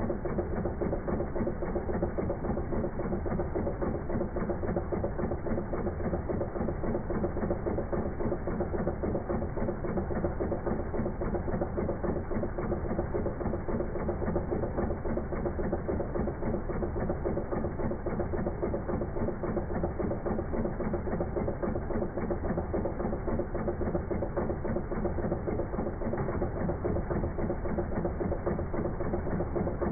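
Volvo D5244T4 2.4-litre five-cylinder diesel engine idling, slowed down, a steady even run of combustion pulses. The tappets, rockers and swirl flaps are newly replaced, and the idle sounds a bit smoother for it.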